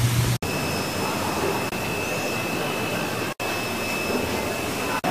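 Steady rushing noise with a faint thin high whine, cutting out for an instant a little under half a second in and again after about three seconds.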